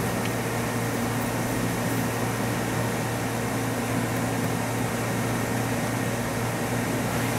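Mighty Viper PRW-5340 CNC bridge mill running with its coolant flowing: a steady low machine hum with a faint steady high tone.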